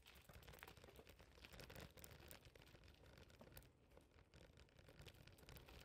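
Near silence, with a faint low hum and a few tiny scattered clicks.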